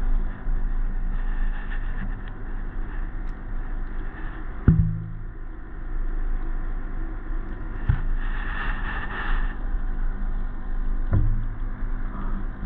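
Muffled sound from a camera held underwater in a small glass aquarium: a steady low hum with three dull knocks, about a third of the way in, near two thirds and near the end. There is a brief rush of hiss just after the second knock.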